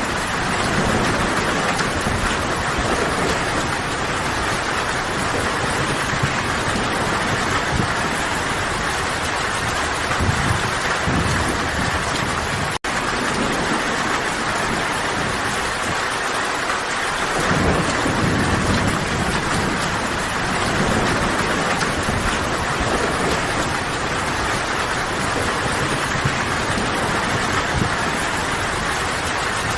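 Steady heavy rain falling, with low rumbles of distant thunder that swell and fade several times. About halfway through the sound cuts out for a split second.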